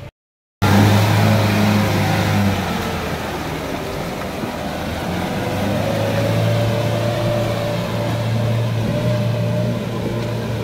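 A 4x4 SUV's engine running steadily as it pulls through deep mud. It cuts in abruptly after half a second of silence.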